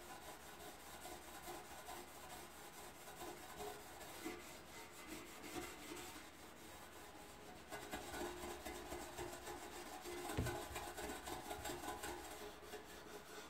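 Razor blade scraping old RTV sealant and gasket residue off the sealing flange of a Jeep Cherokee XJ oil pan, cleaning the surface for a new gasket. Continuous rough scraping strokes, louder from about eight seconds in.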